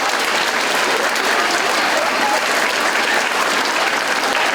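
An audience of schoolchildren clapping steadily, with some cheers and voices in the crowd.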